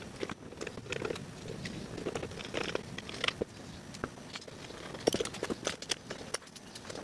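Irregular light clicks and knocks of tools and hardware being handled, with a denser cluster of sharp clicks about five seconds in.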